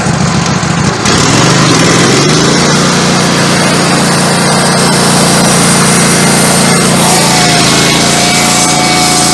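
Woodmizer LT15 Go sawmill engine, just started, is throttled up about a second in, its pitch rising, then runs steadily at high speed. A thin whine joins in about seven seconds in.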